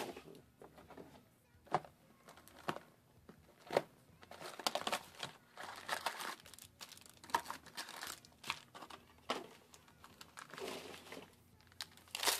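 A Cardfight!! Vanguard booster pack wrapper crinkling and being torn open by hand, in irregular crackles with a few sharp clicks and a louder crackle near the end.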